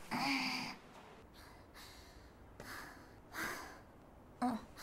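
A young woman's voiced non-word noises: a short voiced sound at the start, then two breathy exhales and a brief voiced noise near the end.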